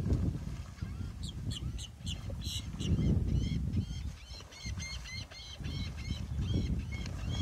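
Gulls calling while feeding over a school of fish: a few sharp cries, then from about three seconds in a quick run of short arched calls, about four a second. A low rumble runs underneath.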